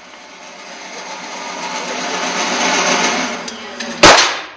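A single .44 Magnum shot from a Ruger revolver about four seconds in, with a short echo off the indoor range's walls. Before it, a steady hiss grows louder.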